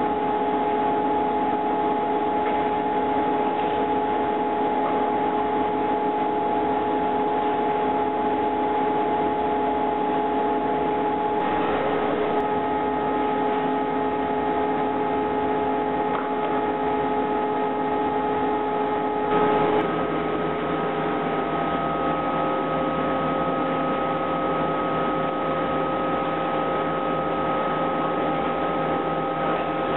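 LJT-4DNC digitally controlled paper tube winder running steadily: a constant mechanical hum with several steady whining tones, whose pitches shift about a third of the way in and again just past halfway.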